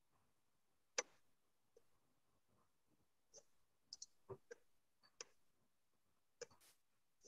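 Irregular faint clicks and small taps over a quiet room: about ten of them, the sharpest about a second in and several close together around the middle.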